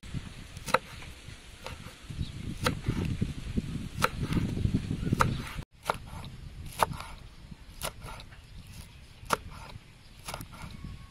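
Large kitchen knife slicing red long chilies on a wooden chopping board: sharp knocks of the blade striking the board, about one a second, with a brief break about halfway.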